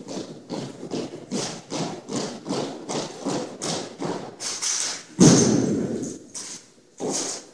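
JROTC armed drill team's unison stomps and rifle strikes on a gym's hardwood floor, a steady run of sharp knocks about three a second. About five seconds in comes one much heavier impact that rings on in the hall before the knocking resumes.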